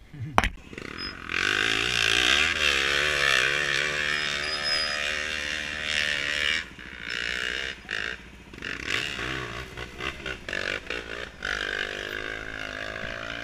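Trail motorcycle engine revving hard, its pitch wavering up and down as the throttle is worked, with several short dips where the throttle is eased off. A sharp knock comes just before the engine sound starts.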